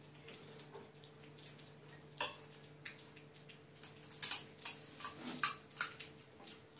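Eating sounds from pani puri: one short crunch or slurp about two seconds in, then several more in quick succession past the middle.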